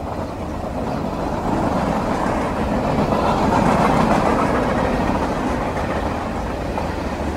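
Freight train cars rolling past: a steady rumble and rattle of steel wheels on the rails, growing louder to a peak a little past midway and then easing slightly.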